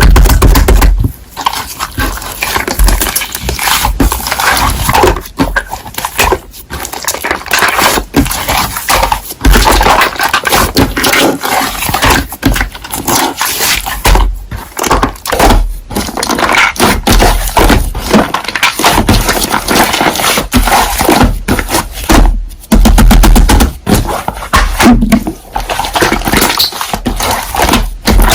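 Slime being squished and pressed by hand, making a dense run of small clicks, crackles and pops, with a few heavier low thumps.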